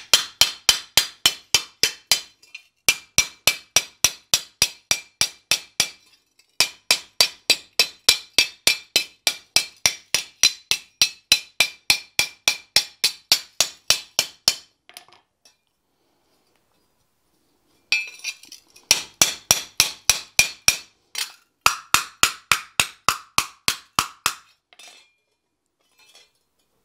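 Hand hammer striking a thin steel trowel blade cold on an anvil face, taking out wrinkles: quick, even, ringing blows about three a second in long runs. The blows break off for a few seconds about halfway through, start again, and stop a couple of seconds before the end.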